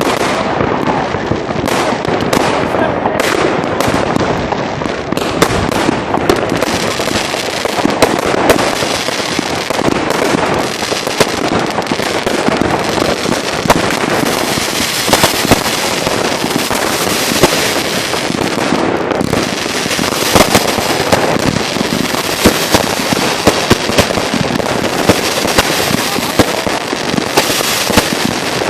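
New Year's Eve fireworks going off in a dense, unbroken barrage: overlapping bangs and crackling with many sharp reports.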